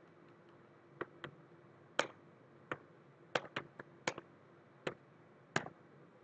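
Computer keyboard keystrokes: about a dozen single, sharp key clicks at irregular intervals, as braces, a new line and a semicolon are typed, over a faint steady hum.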